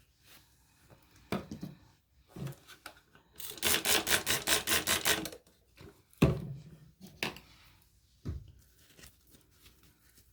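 Quick rubbing or scrubbing strokes on a grimy Swiss Army knife, about seven a second for roughly two seconds near the middle, with separate clicks and knocks from handling the knife before and after.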